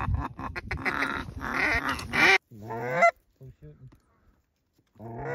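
Canada goose honks and clucks: a fast, overlapping run of calls that cuts off suddenly about two seconds in, then a single honk, and a last honk rising in pitch near the end.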